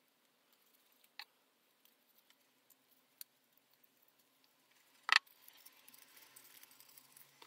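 Quiet handling of paper model parts and small tools on a desk: a few faint clicks and taps, one sharp click about five seconds in, then a soft paper rustle as the folded paper pieces are held and pressed together.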